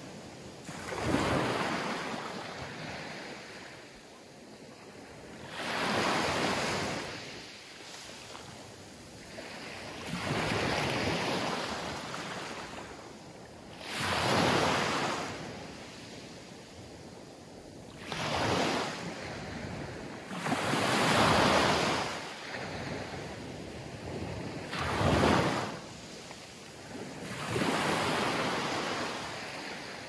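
Small Mediterranean waves breaking and washing up a beach of coarse sand and pebbles, one surge of rushing water every three to five seconds, about eight in all, each swelling and then fading back.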